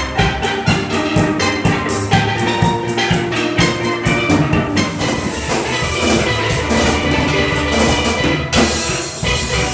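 Steel drum band playing a fast, upbeat tune: steelpans ringing out melody and chords over a driving drum beat.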